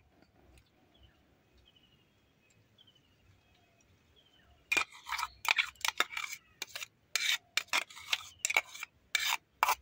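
Faint high chirps, then from about five seconds in a quick, irregular run of sharp clicks and knocks: a steel spoon scraping and tapping against a steel mixer-grinder jar while a thick milk mixture is poured out of it.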